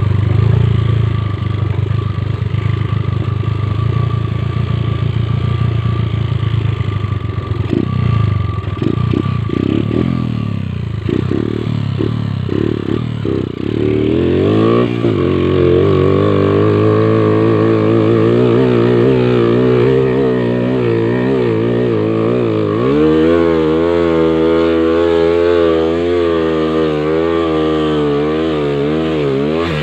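Motorcycle engine running, then blipped in short bursts with some knocking, then held at high revs that climb and step up higher about three-quarters of the way through, as the bike struggles up a slippery slope on soft tyres.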